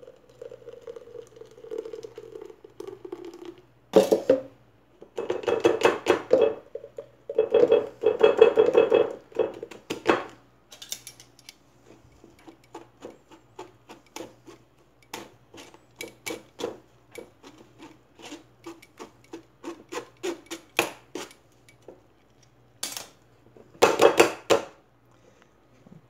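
Pulpy blended pineapple-peel juice poured into a plastic mesh strainer over a jug, splashing in a few separate pours in the first ten seconds and again briefly near the end. In between, a utensil stirs and presses the pulp in the strainer, making many small scrapes and taps against the mesh.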